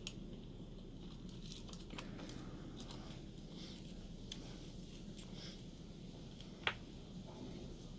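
Faint scattered metal clicks and light scraping as a small shim and tools work at a padlock's retaining clip, with one sharper click about two-thirds of the way through.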